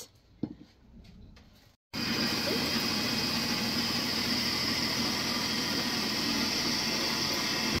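A faint knock, then about two seconds in an electric mini chopper cuts in, its motor running with a steady whir and hum as it grinds peanuts into peanut butter.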